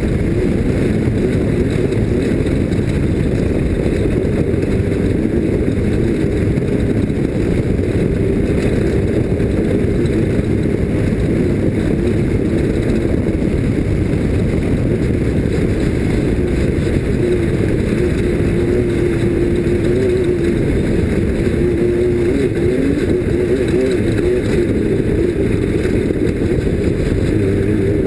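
Off-road race vehicle's engine running hard at a steady loud level under a dense low rumble, its pitch wavering up and down in the second half.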